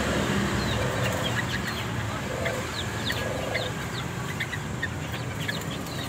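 Caged songbirds giving many short, quick chirps, with a chicken clucking briefly about three times in the background.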